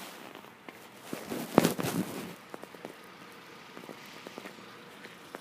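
Scattered light clicks and knocks over faint outdoor background noise, with a cluster of knocks about a second in and one sharp, loud knock in the middle of it.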